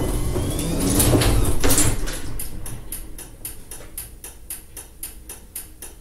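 Old, worn garage door run by its opener, rumbling and rattling as it travels, then slamming hard a little under two seconds in. After the slam comes a fainter run of even clicks, about four a second.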